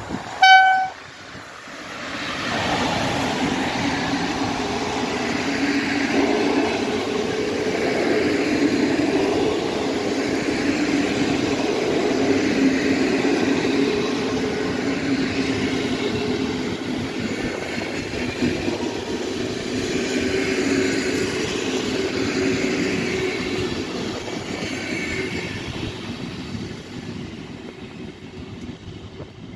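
A short single horn blast at the start, then an electric-hauled passenger train passing close by: the steady rolling of a long rake of coaches' wheels on the rails, lasting more than twenty seconds and fading near the end as the last coaches move away.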